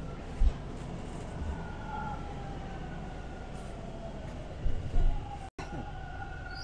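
TTC subway train slowing to a stop: a steady rumble under a motor whine that falls in pitch as the train brakes, with a few low thumps.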